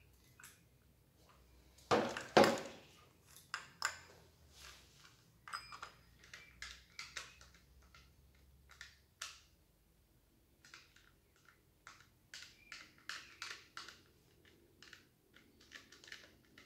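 A chainsaw is set down with a heavy thump on a wooden workbench about two seconds in. Scattered clicks and light metallic rattles follow as the loose saw chain is handled and fitted over the sprocket.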